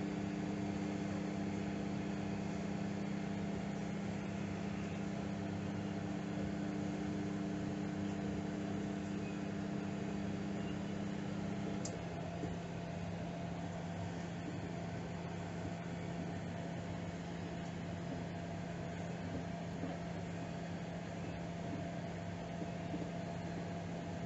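Microwave oven running with a steady hum. About halfway through the hum drops to a lower, slightly quieter tone as the magnetron cuts out while the fan and turntable keep running, the on-off cycling of a reduced power setting used to slow the heating.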